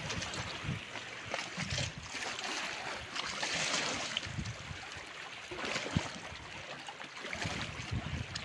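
Sea water lapping and trickling close by, a steady watery hiss with a few low gusts of wind on the microphone.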